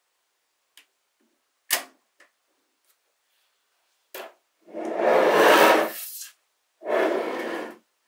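Magnetic balls clicking together as the ball-built wing snaps onto the model body, with a sharp click a couple of seconds in. Then two longer rattling, scraping stretches as the magnetic-ball model is shifted and turned on the table, the first one the loudest.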